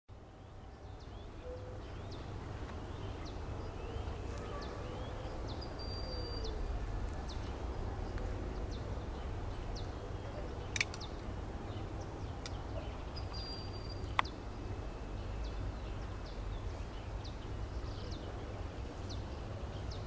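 Marsh ambience: a steady low rumble with scattered short, high bird chirps, and two sharp clicks near the middle.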